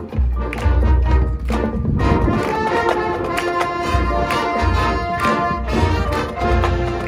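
High school marching band playing its field show: heavy low drum and bass hits in the first two seconds, then full held brass chords with the low hits coming back underneath.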